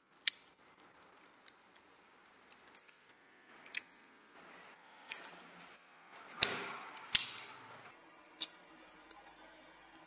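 Stainless steel multi tool being handled: a string of sharp metallic clicks and snaps as its fold-out tools are swung out of the handle and seated. The loudest snap comes just after the start, and two more come close together about two-thirds of the way through.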